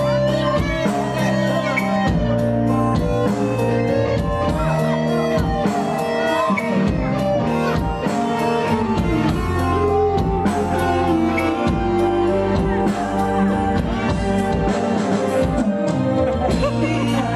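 Live band instrumental: a Yamaha electronic keyboard and an electric guitar playing a melody together over a continuous accompaniment.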